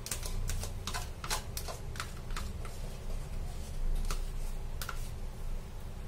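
Metal spoon clicking and tapping against a small bowl as pizza sauce is scraped out of it: a quick irregular run of sharp clicks in the first two and a half seconds, then two more later on, over a low steady hum.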